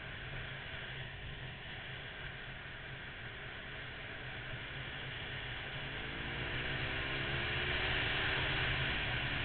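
Wind rushing over a bike-mounted camera microphone with a Honda VFR800's V4 engine running underneath; about six seconds in, the engine note rises and everything grows louder as the bike accelerates to overtake a car.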